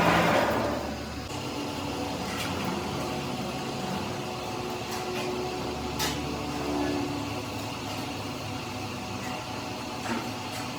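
A loud workshop machine stops about a second in, leaving a steady low hum with a few light clicks and taps.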